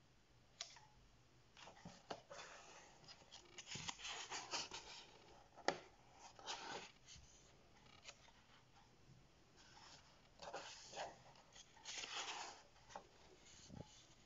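Paper pages of a colouring book being turned by hand: soft papery rustles in several short runs, with one sharp click about six seconds in.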